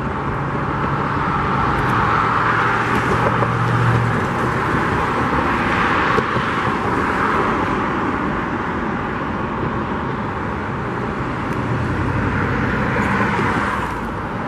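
Road traffic going past, a steady tyre-and-engine rush that swells and fades as individual cars pass, with a low engine hum in the first few seconds.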